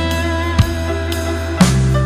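Background rock music: sustained electric guitar and bass, with a drum hit about once a second.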